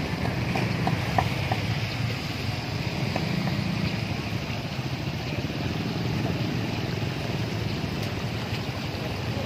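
Steady rush and splash of water pouring from hoses into live-fish holding tanks.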